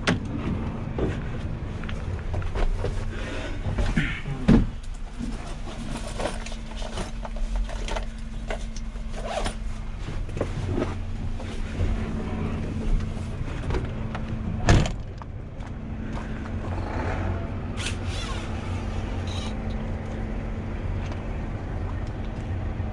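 Clicks, knocks and rustling of someone handling parts of a truck while checking its engine oil, with two louder bangs about four and a half and fifteen seconds in. A steady low hum runs underneath.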